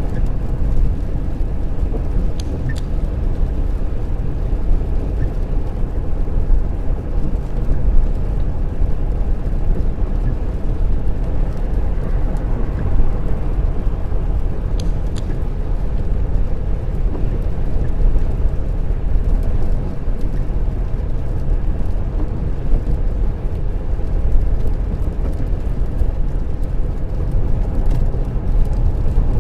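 Steady road noise inside a car cruising at speed on a wet dual carriageway: a continuous low rumble of tyres, engine and wind that stays even throughout.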